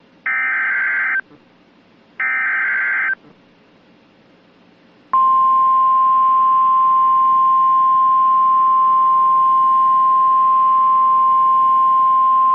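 Emergency Alert System tornado warning on NOAA Weather Radio: two short buzzing bursts of the SAME digital header, then about five seconds in the steady, single-pitch 1050 Hz warning alarm tone begins and holds.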